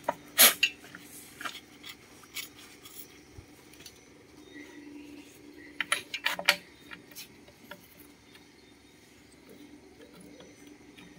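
Scattered metal clicks and clinks as small two-stroke brush-cutter engine parts are handled, with a sharp knock about half a second in and a cluster of louder clicks around six seconds in. The engine does not run.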